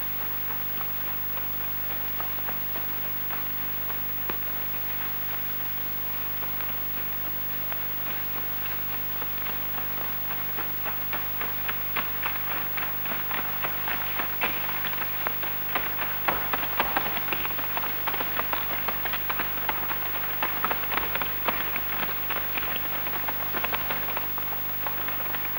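Dense patter of many feet shuffling and running on a wooden parquet floor, growing louder from about ten seconds in, over a steady hiss and low hum of an old recording.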